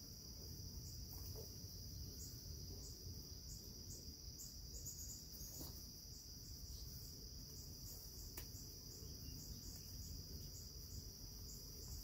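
Steady high-pitched insect trill, with a low steady rumble underneath and a couple of faint clicks.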